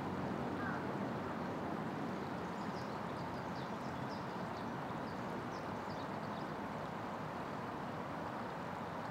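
Shallow river water flowing steadily over the riverbed, an even rushing noise. Faint short high chirps come and go through the middle.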